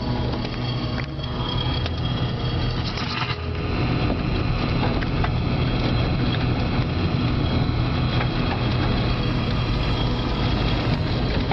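A tornado's wind making a continuous deep rumble like a freight train, with wind noise on the microphone, getting louder about four seconds in.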